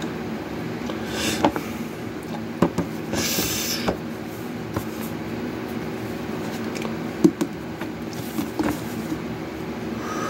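A steady low mechanical hum, with several sharp knocks and clicks and a brief rustle about three seconds in.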